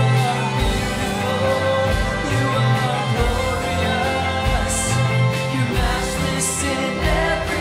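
Live worship band playing a song, with voices singing over sustained chords and a bass line that moves every second or two.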